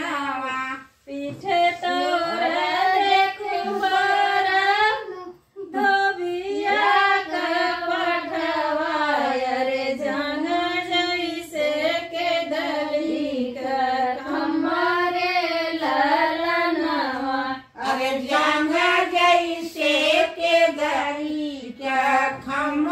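Women's voices singing a traditional Indian wedding song (shaadi geet) without instruments, in long held melodic phrases broken by a few short pauses.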